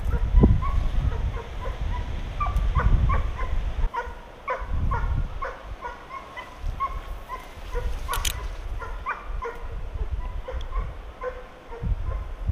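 Young Russian piebald hound baying on a hare's trail: rapid short yelps, several a second, repeated throughout, over low wind rumble on the microphone.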